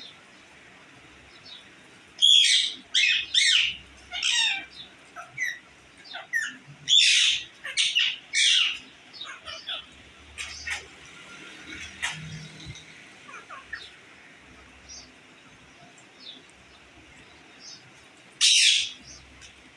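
Pet parrot screeching in loud, harsh bursts: a cluster of calls about two seconds in, another around seven to eight seconds, and one more near the end, with softer chirps between. The bird is angry.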